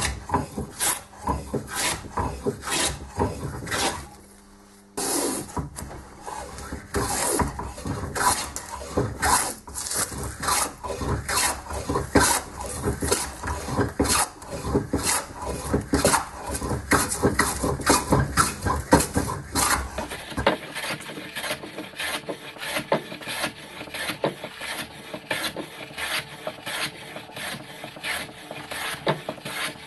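Hand plane shaving a wooden hammer handle held in a vise: quick repeated strokes, about two a second. There is a brief pause about four seconds in.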